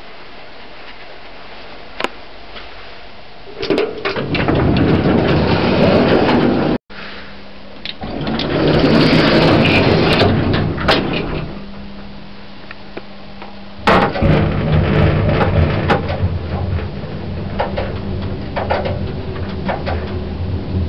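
A 1980s Stannah passenger lift in use: loud door and mechanism noise in stretches, then a sudden sharp onset about fourteen seconds in followed by a steady low hum of the lift running. The sound drops out abruptly for an instant about seven seconds in.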